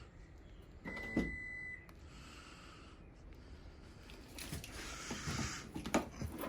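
A single steady electronic beep lasting about a second, followed later by a breathy, rustling noise and a few sharp clicks toward the end.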